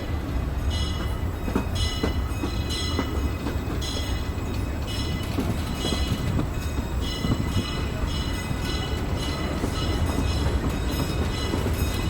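Disneyland Railroad steam train heard from a passenger car as it runs along the track. A steady low rumble of wheels on rails, with a regular high-pitched clicking about every three-quarters of a second.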